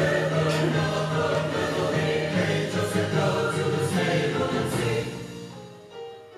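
Song with layered, choir-style vocals holding a long chord in close harmony. It dies away about five seconds in.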